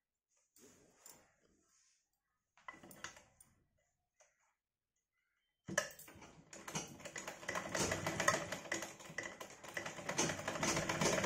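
Domestic sewing machine starting suddenly about halfway through and stitching with a fast, dense clatter that gets louder toward the end. Before it starts there are only a few faint rustles of cloth being positioned under the presser foot.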